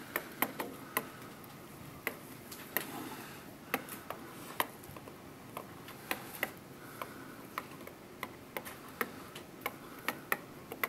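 Pen tip tapping and clicking against an interactive whiteboard while words and numbers are written, in sharp, irregular taps about two a second.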